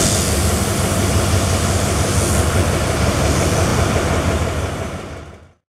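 Diesel train running close by, a steady engine drone with rail noise. It fades out to silence near the end.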